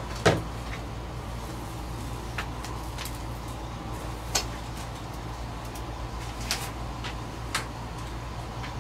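Scattered light knocks and clicks, the loudest just after the start, over a steady low room hum.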